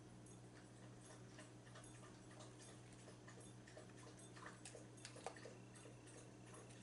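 Faint chewing and small wet mouth clicks of someone eating, a few louder ones just before the end. A steady low electrical hum lies underneath.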